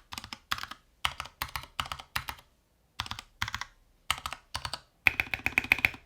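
Typing on a NovelKeys NK65 Entry polycarbonate mechanical keyboard with Gateron Yellow switches: short bursts of rapid keystrokes with brief silent gaps between them.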